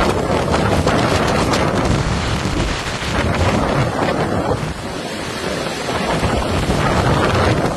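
Gale-force wind buffeting the microphone in a loud, continuous rumbling rush, dipping a little around the middle and building again. A blazing fire is burning close by, fanned by the wind.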